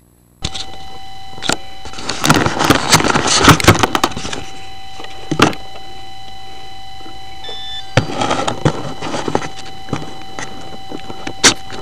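Close handling noise on a foam model airplane: rustling, scraping and clicks as fingers work at the fuselage and battery pack, with a couple of sharp knocks. Under it a steady hiss with a thin steady electronic tone begins suddenly about half a second in.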